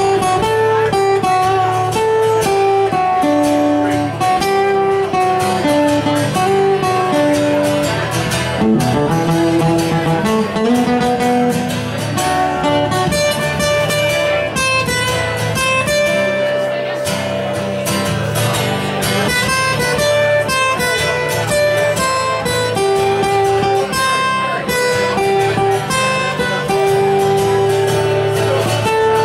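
Live acoustic guitar playing an instrumental jam passage: strummed chords with a picked melody line running over them.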